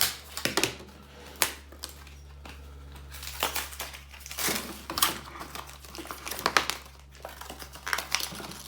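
Pokémon card pack packaging crinkling and crackling in irregular bursts as it is handled and opened.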